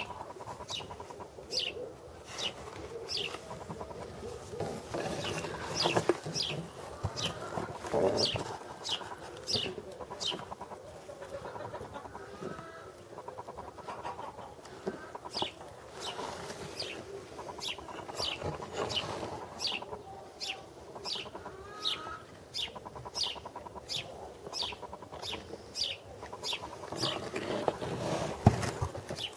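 A kitten growling in low, rough, clucking-sounding grumbles, with a small bird chirping short high notes about twice a second behind it and a few knocks from the kitten moving about in the twigs.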